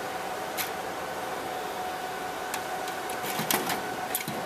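Light clicks and clatter of the metal riser card cage being handled and set into a server chassis, a few separate knocks, over a steady fan-like hum with a faint whine.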